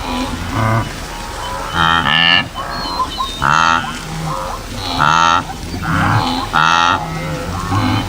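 A chorus of animals calling: loud, nasal, honking or croaking calls about half a second long, repeating roughly every second, with fainter calls overlapping between them.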